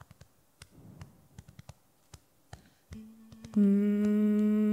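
Faint clicks and small stage noises, then about three seconds in two women start humming a long held note: one voice comes in first and a second, louder voice joins about half a second later a step lower, the two hummed notes held steady together.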